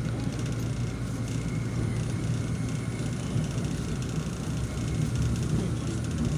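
LRT-2 Trainset #01 running between stations, heard from inside the passenger car: a steady low rumble of the wheels on the rails.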